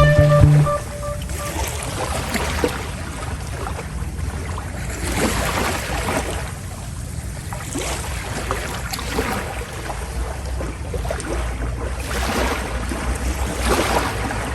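Sea water rushing and splashing along the hull of a moving passenger ferry, surging every second or two, over the ship's steady low rumble.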